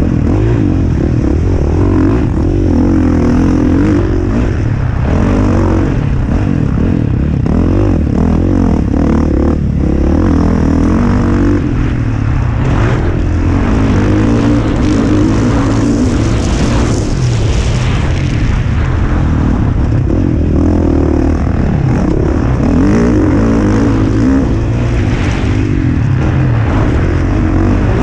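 Motocross dirt bike engine heard close up, revving up and down repeatedly as the bike is ridden around a dirt track, the pitch rising and falling with the throttle and gear changes.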